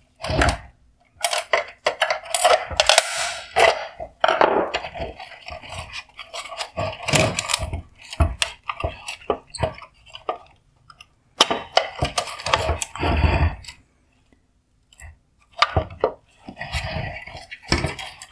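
Flathead screwdriver prying at the plastic upper shroud of a Porsche Cayenne LED headlight: repeated sharp plastic clicks, scrapes and rattles as the clips are popped loose, with a short pause about two-thirds of the way through.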